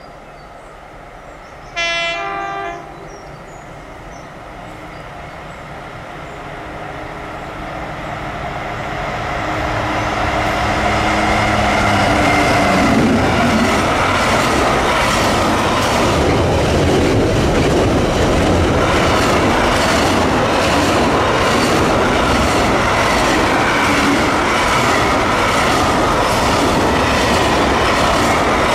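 Freightliner Class 70 diesel locomotive sounds a short horn blast about two seconds in. Its engine grows louder as it approaches and drops in pitch as it passes. A long rake of container wagons follows, rumbling by with regular wheel clatter.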